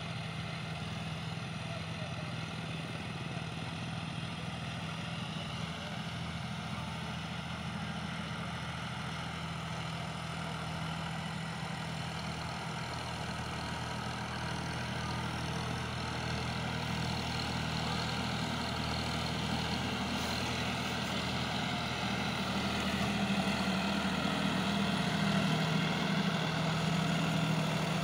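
John Deere 5050 tractor's three-cylinder diesel engine running steadily under load as it drives a rotavator tilling the field. It grows louder over the last several seconds as the tractor comes close.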